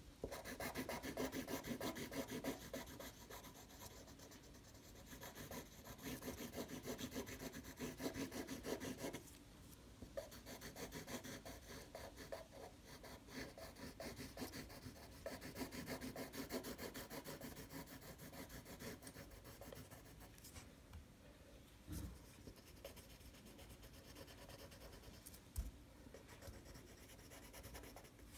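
Black felt-tip marker scribbling on paper in quick back-and-forth strokes, filling in a solid black area. It pauses briefly now and then, with a couple of soft knocks in the later part.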